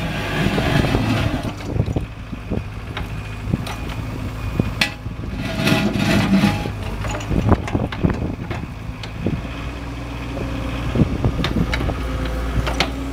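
Excavator diesel engine running steadily while the steel 4-in-1 bucket scrapes mud across concrete, with scattered clanks and knocks of the bucket on the ground.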